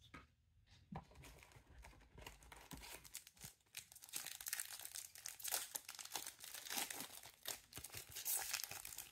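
Foil trading-card pack wrapper crinkling and being torn open by hand. The faint rustle starts about a second in and grows into a busier crackle from about four seconds in.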